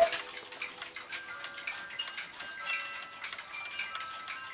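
Jülich East German mantel clock with a tiny Brocot escapement ticking quickly and evenly, about three ticks a second. The freshly repaired, cleaned and oiled movement is running in its case.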